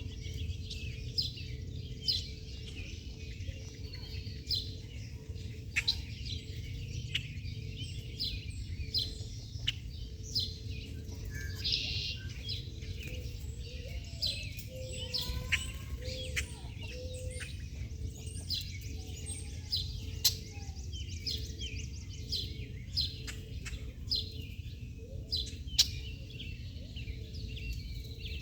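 Many small birds chirping in quick, short calls, over a steady low rumble.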